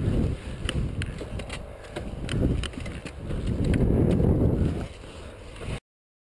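Motocross bike ridden over a dirt track, heard on a helmet camera: a rough low rumble of engine and wind buffeting the microphone, rising and falling, with scattered sharp clicks and knocks. The sound cuts off abruptly near the end.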